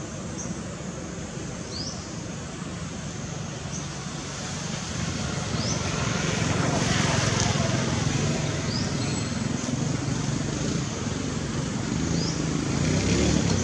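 Motor traffic running steadily and growing louder about halfway through as a vehicle passes. A short, high, rising chirp repeats every few seconds over it.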